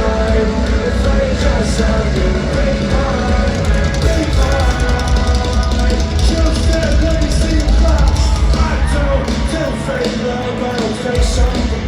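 Live rock band playing loudly, with drums, electric guitars and sung vocals.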